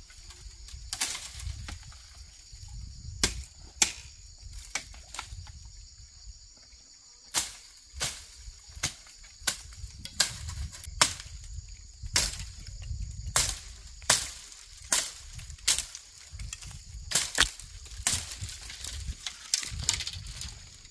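Irregular sharp knocks or strikes, about one or two a second and busier in the second half, over a steady high-pitched buzz.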